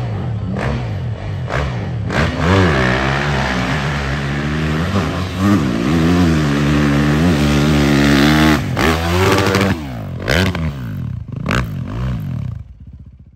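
A 450cc-class dirt bike engine revving hard up a hillclimb, its pitch climbing and dropping again several times as it pulls up the slope. Near the end the engine falls off and gives a few short revs before the sound cuts off.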